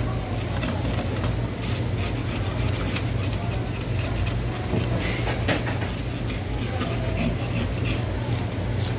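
Knife working a blood snapper on a cutting board: a continuous run of short scraping clicks, over a steady low hum.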